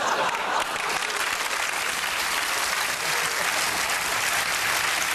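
Studio audience applauding, dense and steady clapping.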